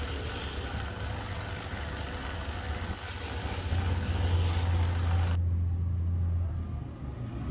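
Hand-held rotary buffing tool grinding worn rubber off a tractor tire: a steady motor hum under a gritty hiss. About five seconds in, the hiss cuts off abruptly and a low hum goes on.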